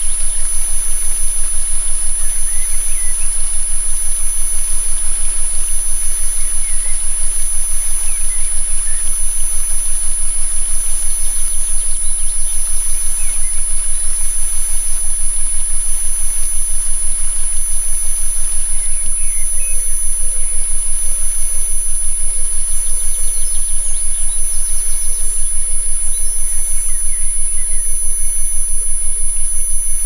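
Steady electronic sine tones of a healing-frequency track, several pitches held at once with a high tone loudest, laid over a forest ambience with faint bird chirps scattered through it.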